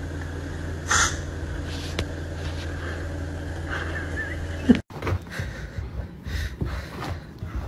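A steady low electrical hum with a brief rustle about a second in and a single click a second later. The hum cuts off suddenly about five seconds in, giving way to scattered soft thumps and scuffs.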